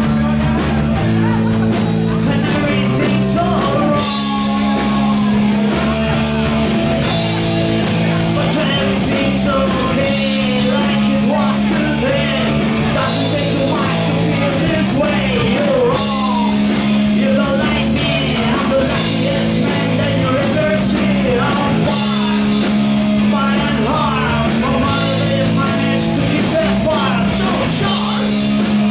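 A live metal band playing: electric guitars holding chords over drums, with a singer's vocals on top.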